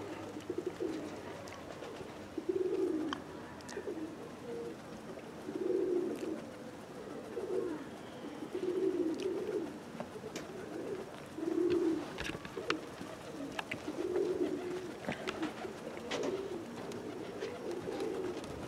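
Domestic pigeons cooing: low coos repeating every second or two, with a few faint sharp ticks here and there.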